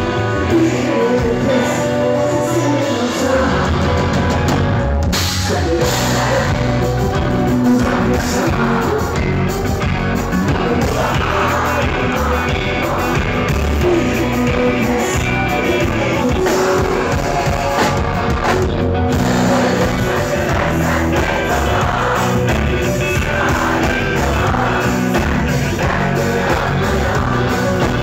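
Live rock band playing a song, with a male singer's vocals over drums and guitars, picked up through the room's amplified sound.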